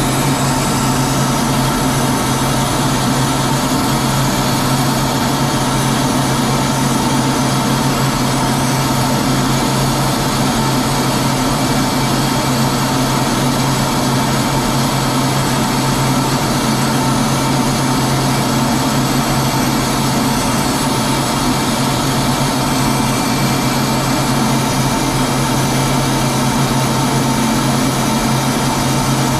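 Steady drone of an aircraft in flight, heard from aboard the chase plane: constant engine and airflow noise with a low hum and a few steady whining tones, unchanging throughout.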